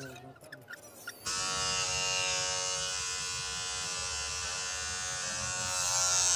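A few faint clicks, then an electric hair clipper starts up about a second in and buzzes steadily as it cuts hair at the nape.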